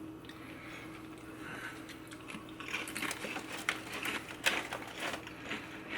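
Ridged potato chips being crunched and chewed close to the microphone: a quick, irregular run of crackling crunches that starts about two and a half seconds in.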